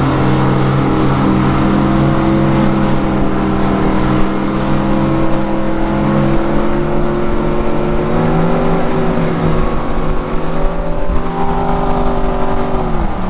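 1978 Campbell boat's inboard engine running under load on plane, its pitch creeping slowly upward, with water and wind rushing. Near the end the engine note drops sharply.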